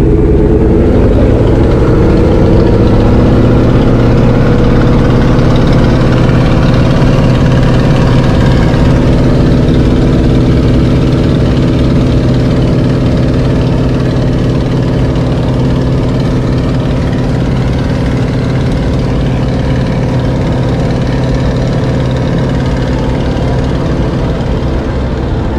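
Aircraft piston engine heard from inside the cockpit. Its pitch rises over the first few seconds as the throttle is opened, then it holds at a steady, loud high-power run.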